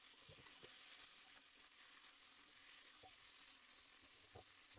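Faint, even sizzling of potato wedges frying in oil with tomato-onion masala in a wok, with a few soft knocks scattered through it.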